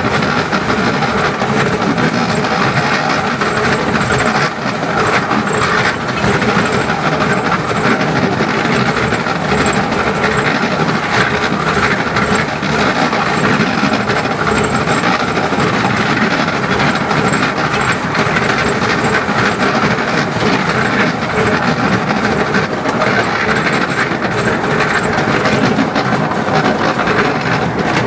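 Narrow-gauge steam train running steadily along the line, heard from an open carriage just behind the locomotive: a continuous rumble and clatter of the wheels on the track.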